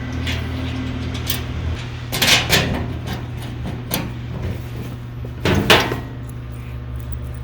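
Steel wheelbarrow parts and hardware clanking and knocking as the front support bracket is fitted and bolted on: a few light clicks and two louder clunks, one about two seconds in and one near six seconds.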